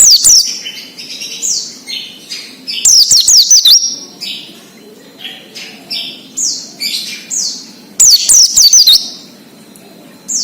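White-eye (pleci) singing in the 'ngalas' style: rapid high chirping broken by bursts of steep falling notes. The loudest bursts come at the start, about three seconds in and about eight seconds in.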